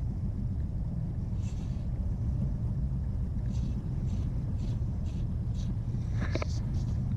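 Steady low wind rumble on the microphone, with faint short hissing swishes at intervals and a few sharp clicks near the end.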